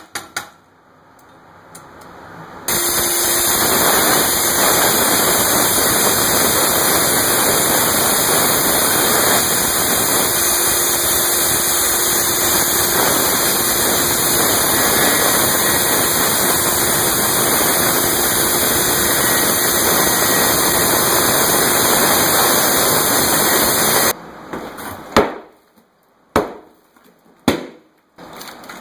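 Circular saw cutting through 1-inch subfloor along a chalk line: a loud steady run of about twenty seconds that starts and stops abruptly. Near the end come about four sharp hammer blows on the floor.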